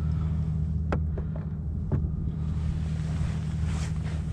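Wind on the microphone over a steady low hum on a micro skiff, with two sharp knocks about one and two seconds in as the push pole is handled against the hull.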